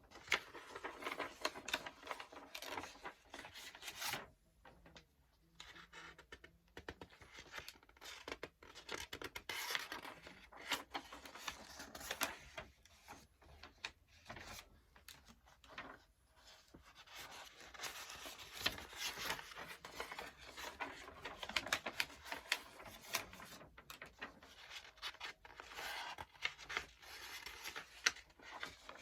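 Paper book pages being turned one after another: papery rustling and crisp flicks, with a few short pauses.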